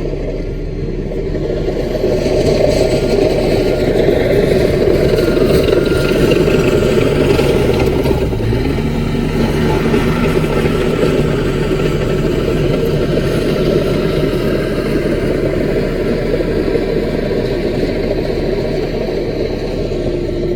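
CAT mini bulldozer's diesel engine running steadily under load as it works, its engine note shifting about eight seconds in.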